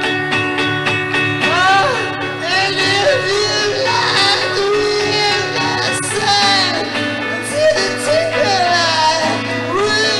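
Live rock band playing, with a man singing into the microphone over the instruments. The voice comes in about a second and a half in, over steady held notes.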